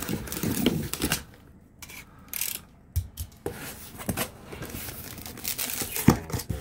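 A cardboard shipping box being torn open along its taped seam, with tearing and rustling of the cardboard and flaps and a few short knocks as the box is handled.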